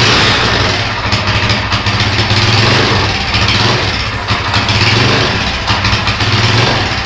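Kawasaki Barako motorcycle's single-cylinder engine running at about idle, its loudness swelling and easing a little.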